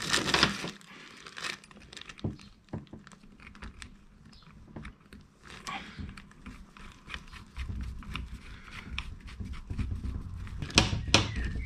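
Hand-fitting of threaded steel studding and nuts through a chain-drive differential housing: scattered small metallic clicks and taps, with a low rumble of handling joining about eight seconds in.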